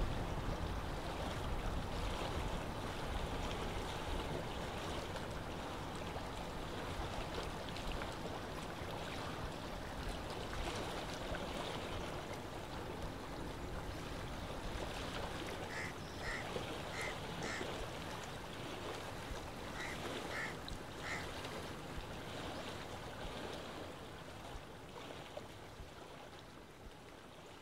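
Lake water lapping, with wind, as a steady wash that slowly fades near the end. About two-thirds in, a bird calls in two short series of clear notes, four and then three.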